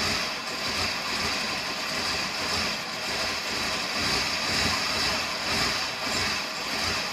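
1987 GMC Suburban's engine being cranked by the starter without catching, a steady whine with an even pulsing rhythm. A hard start on the first cold start, a fault that began after the engine overheated.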